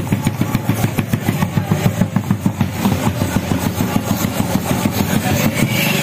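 An engine idling close by, a rapid uneven throbbing that eases off near the end.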